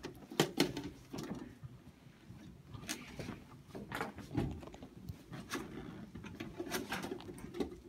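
Scattered clicks, knocks and rustles of people handling and cutting open cardboard boxes with scissors.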